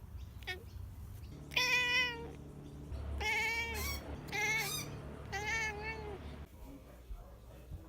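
Domestic cat meowing four times, each call under a second long, the first the loudest.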